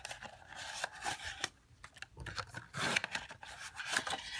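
Paper documents and cardboard packaging being handled: irregular rustling and scraping with small clicks and taps.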